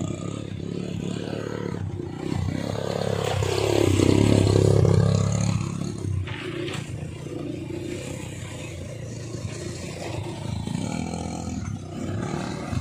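ATV (quad bike) engines running as the quads ride along a dirt track, swelling loudest about four to five seconds in as one passes close and pulls away.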